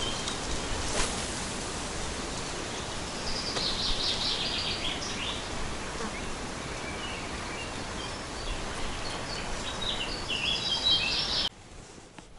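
Songbirds singing in short bursts of high chirps over a steady rushing outdoor noise. The background drops to much quieter about eleven and a half seconds in.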